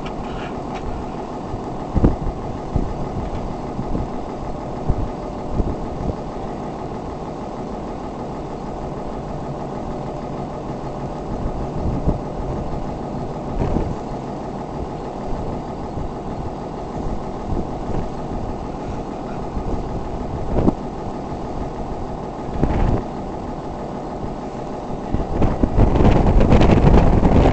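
Oil-well pumpjack running: a steady mechanical hum from its drive, with a few scattered knocks. Near the end a louder, rough rumbling swells for about two seconds.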